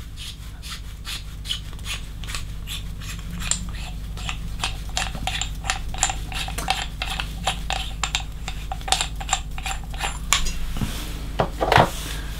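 Threaded T68 bottom bracket being unscrewed by hand, its two metal halves turning apart with irregular clicks and metallic rubbing, a few clicks a second.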